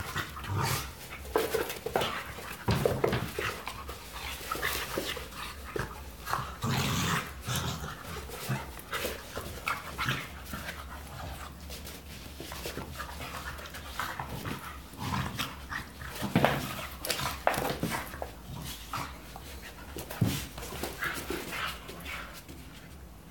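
Two dogs play-fighting: irregular short bursts of dog noises and panting, with paws scuffling on the rug.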